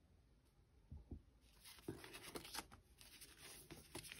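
Faint rustling and light ticks of paper label sheets being handled and flipped. Nearly silent for the first second, then a scattered run of soft rustles and taps.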